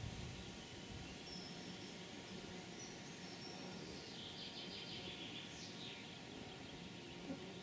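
Faint songbird calls over a steady outdoor background: a few short high notes, then a quick run of repeated notes and a falling note about two-thirds of the way through.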